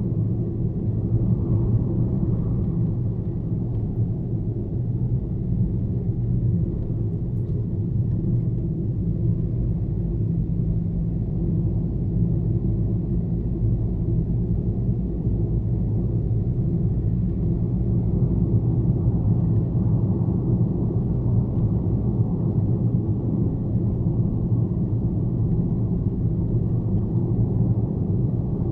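Car driving at a steady speed on a highway: a continuous low, even drone of engine and tyres on the road, with no changes in speed.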